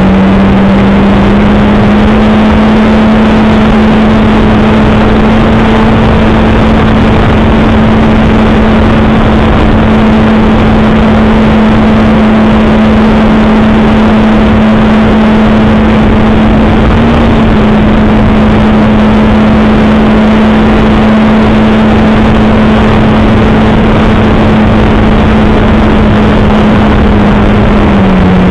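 Electric motor and propeller of an FMS Kingfisher RC plane at steady cruising throttle: a constant whine under loud rushing airflow on the nose-mounted camera. The pitch steps up slightly about two seconds in and drops sharply at the very end as the throttle comes back.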